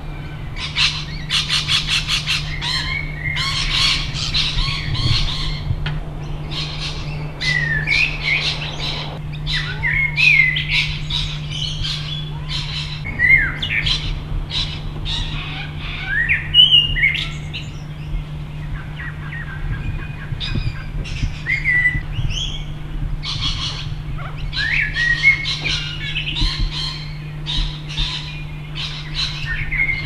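Backyard birds chirping and calling, with short gliding whistled notes and a quick chattering run about a second in. A steady low hum runs underneath.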